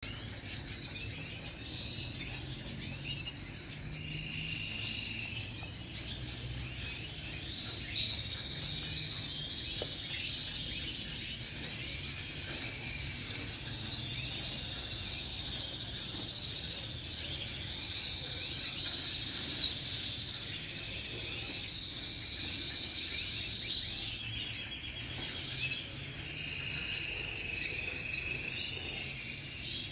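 Domestic canary, a red intensive agate, singing a long continuous song of rapid trills and warbles, with held rolling trills about four seconds in and again near the end.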